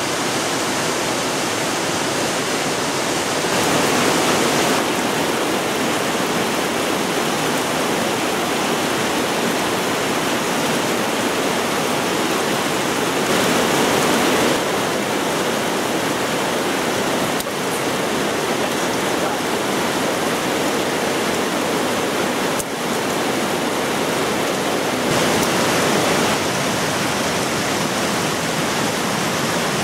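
Fast mountain river rushing over rocks in whitewater, a steady loud noise that grows a little louder and brighter a few times.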